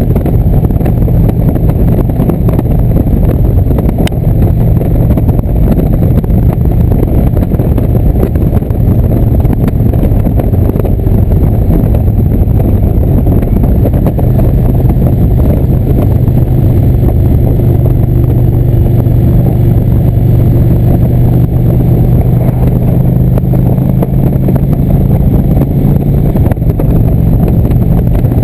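Indian V-twin motorcycle running at a steady cruising speed. Wind buffets the camera microphone over the engine drone.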